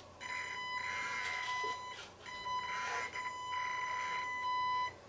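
Brushed electric motor of a Reely Mini Freemen 1/16 RC crawler whining at one steady high pitch as the crawler is driven slowly on gentle throttle. It comes in two spurts, with a short dip in the first and a brief break at about two seconds, and cuts off near the end.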